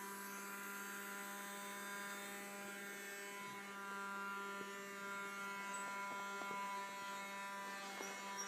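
Small vacuum cleaner's electric motor running at a steady speed, a constant buzzing hum with a slight swell in level around the middle.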